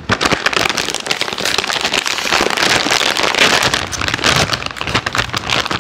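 A plastic chip bag crackling and crinkling without a break as it is pulled open and handled close to the microphone.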